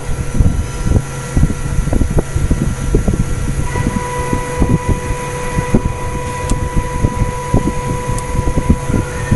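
Workshop noise at a screen printing machine: a steady low rumble with irregular knocks as metal fixture parts are handled and fitted, under a thin steady whine. A second, stronger whine tone comes in about four seconds in.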